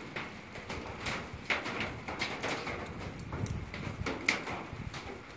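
A small wood fire burning in a metal bucket in the rain: irregular sharp pops and ticks, a few a second, over a low hiss. One louder pop comes about four seconds in.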